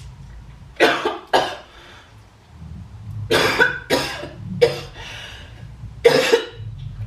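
A woman coughing hard, about six harsh coughs in three fits, with the longest near the end. The cough is put on: she is faking a coughing fit to make her husband believe she is coughing up blood.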